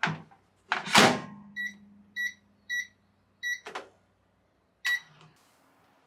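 Microwave oven at work: a couple of clunks and a low hum, then four short high beeps about half a second apart. A click and one more beep follow near the end.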